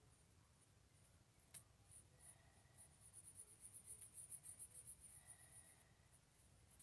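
Faint pencil scratching on paper: quick, repeated short strokes shading in a drawn eye, busiest in the middle, with one light tap about one and a half seconds in.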